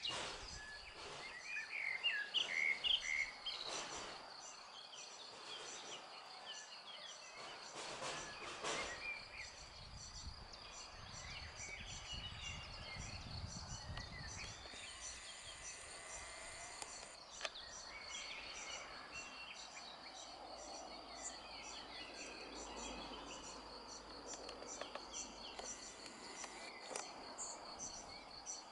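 Outdoor ambience of a steady, pulsing high insect trill with bird chirps, the chirps loudest in the first few seconds. A low rumble rises and fades around the middle.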